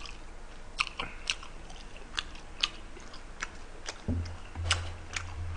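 A man chewing food close to the microphone: scattered wet mouth clicks and smacks. A low steady hum comes in about four seconds in.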